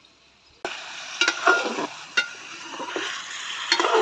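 Chicken pieces sizzling as they fry in ghee in a metal pot, with a metal ladle stirring and clinking sharply against the pot several times. The sizzle starts about half a second in.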